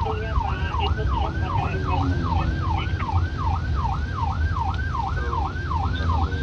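Police car siren on a fast yelp, its pitch sweeping up and down about two and a half times a second, heard from inside the police car over the steady low rumble of the engine and road.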